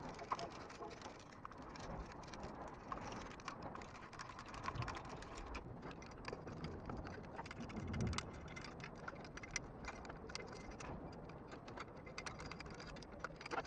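Light, irregular metallic clicking and tapping of hand tools on the exhaust manifold fasteners: a ratchet and nuts being worked onto the studs. A duller knock comes about eight seconds in.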